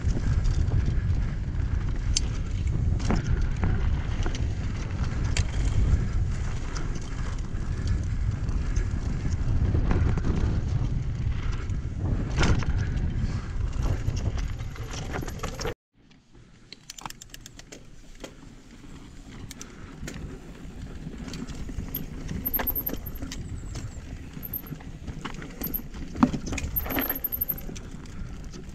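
Mountain bike ridden fast down a rocky dirt trail: wind buffeting the microphone and tyres rumbling over dirt and stones, with frequent clicks and knocks from the bike. A little past halfway the sound cuts out abruptly, then returns quieter, with the rattles and clicks more prominent.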